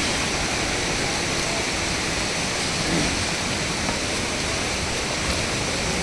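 Steady, even rush of water from a waterfall, with no breaks.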